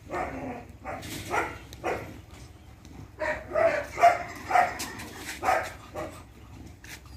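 A dog barking in a quick run of short barks, about two a second, loudest around the middle. It is a guard dog being worked up during protection training.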